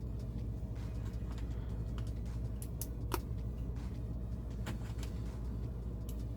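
Plastic LEGO pieces clicking and tapping as they are handled and pressed together: a few scattered sharp clicks over a steady low hum.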